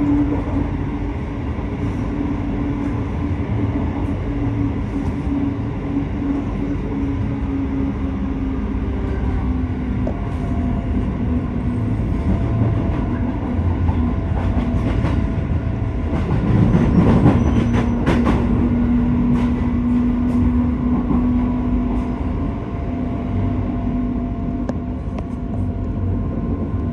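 Train running on rails: a continuous low rumble with a steady hum. It swells louder, with a run of clicks, about two-thirds of the way through.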